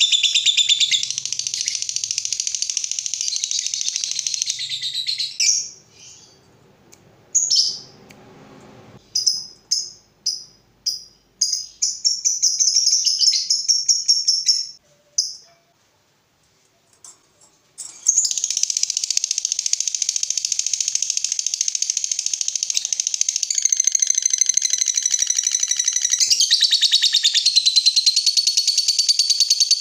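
Lovebird giving its long 'ngekek' chatter, the prized extended trill of a fighter lovebird: a rapid, high-pitched unbroken trill for about five seconds. It breaks into short separate chirps and a brief pause, and then another long unbroken trill starts about halfway through and runs on.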